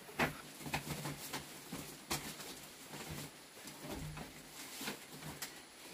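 Irregular light knocks, creaks and rustles from a bamboo bed platform and its woven mat as two small children roll and wrestle on it.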